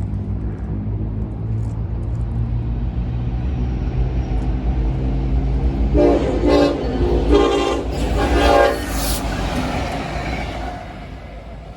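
Union Pacific SD70ACe diesel-electric locomotive running light past, its diesel engine rumbling steadily. About six seconds in its air horn sounds three short blasts, each about half a second. The rumble fades near the end.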